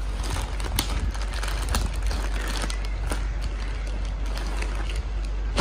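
Clear plastic mailer bag crinkling and rustling as it is pulled at and opened by hand, with many short sharp crackles over a steady low hum.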